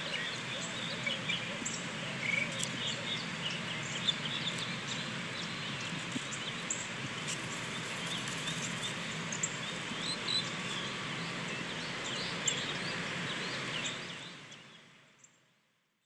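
Outdoor ambience of many small, scattered bird chirps over a steady background hiss, fading out over the last two seconds.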